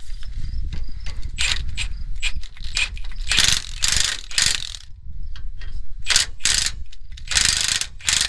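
Milwaukee cordless impact wrench run in a series of short bursts, hammering as it snugs down the nuts on the carriage bolts that hold felling wedges between a truck's leaf spring pack and its lower overload spring. The longest burst falls near the middle.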